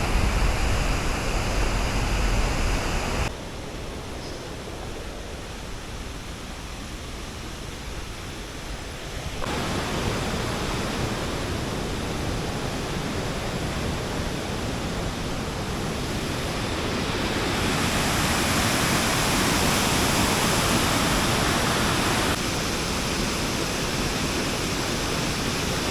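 Steady rush of a waterfall in heavy flow, swollen by a lot of rain. The level changes abruptly a few times: a low rumble for the first three seconds, quieter from about 3 to 9 seconds in, and loudest from about 18 to 22 seconds in.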